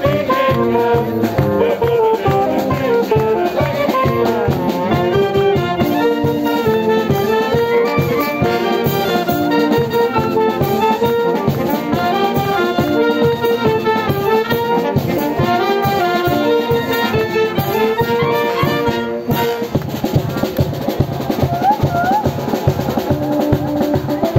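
Wind band of saxophones, trumpets, trombones, clarinets and flute playing a tune in parts over a steady beat of snare drum, bass drum and cymbals. The band breaks off briefly about nineteen seconds in, then plays on.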